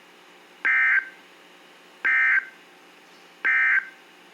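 Emergency Alert System end-of-message signal: three short bursts of SAME digital data tones, each about a third of a second long with about a second of gap between them, over faint hiss. The bursts mark the end of the alert.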